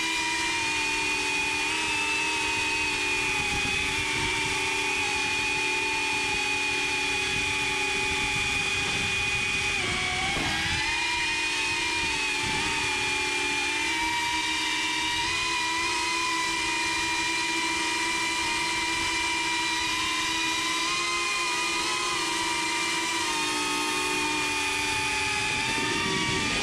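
Small FPV quadcopter's electric motors and propellers whining, the pitch wavering with throttle, with a brief drop and recovery about ten seconds in.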